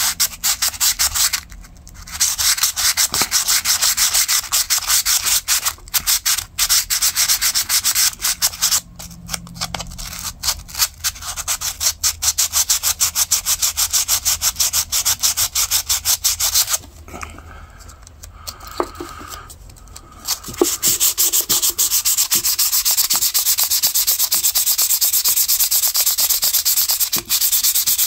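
400-grit sandpaper wrapped around a plastic gift card, rubbed in quick back-and-forth strokes against the metal liners and blade of a slipjoint pocketknife wetted with WD-40. The rasping stops for a few seconds a little past the middle, then resumes steadily.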